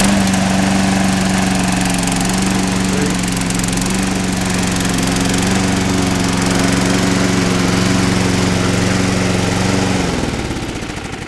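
Briggs & Stratton Quantum XM 5 hp single-cylinder four-stroke lawnmower engine running steadily just after being started. About ten seconds in it shuts off and winds down.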